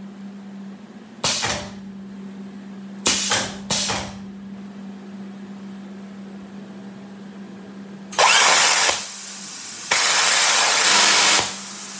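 Pneumatic cylinder moving a breakaway plasma torch, with short hisses of air from the cylinder and its solenoid valve about a second in and twice around three to four seconds in. The plasma torch then fires twice, a loud hiss of the cutting arc at about eight seconds and again from about ten to eleven seconds. A steady hum runs underneath.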